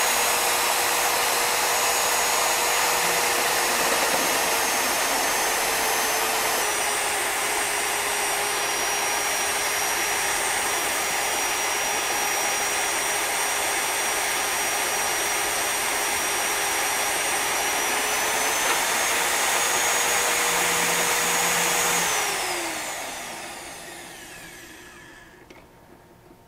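Champion magnetic drill's motor running an annular cutter through thick steel with a steady high whine. The pitch sags a little as the cutter loads up in the steel about seven seconds in and recovers as it breaks through near the end of the cut. About twenty-two seconds in the motor shuts off and winds down to a stop.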